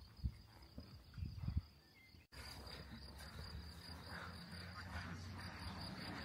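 Outdoor ambience with a steady high-pitched chirring and a few soft low thumps in the first second or two. The sound cuts abruptly just after two seconds in and then carries on as a more even background.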